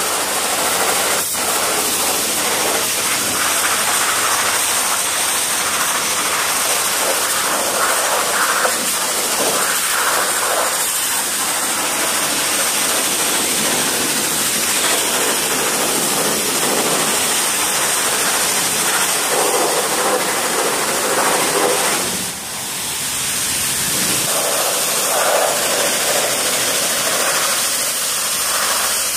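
Pressure washer jet spraying water at a 1/5-scale gas RC buggy's chassis and knobby tyres and the concrete floor: a loud, continuous hiss and spatter that shifts as the jet moves over different parts and dips briefly about three-quarters of the way through.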